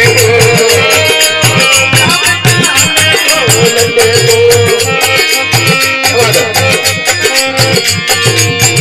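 Instrumental passage of a Rajasthani folk bhajan: a dholak beats a steady rhythm under a held melody line, with jingling percussion on top.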